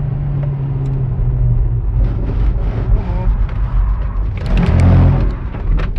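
Car engine and tyre noise heard inside the cabin as the car slides on a wet track. The steady engine note fades about a second and a half in, then a rumbling rush builds to its loudest just before the end, with a few knocks.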